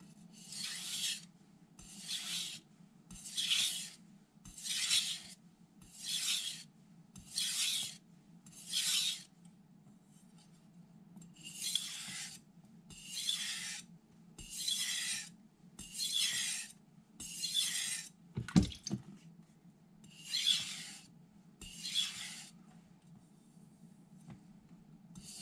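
Carbon steel (Aogami No. 2) knife blade stroked across a wet vitrified Miyagoshi whetstone, a rasping scrape with each pass. About fourteen even strokes come roughly one every second and a half, with a short break near the middle and a single low knock about two-thirds of the way through.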